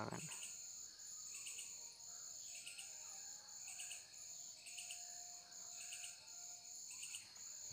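Faint insect chirping: a steady high-pitched trill with short pulses repeating about once a second.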